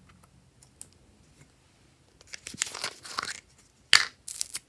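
Sticky crackling and tearing sounds of slime and its plastic jar being handled: faint small clicks at first, louder crackly bursts from about halfway, and one sharp loud crack near the end.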